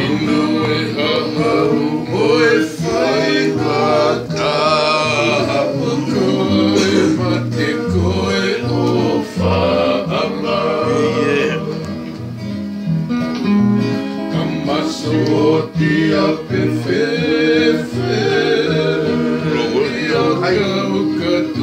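Men singing a Tongan song, accompanied by two acoustic guitars playing chords.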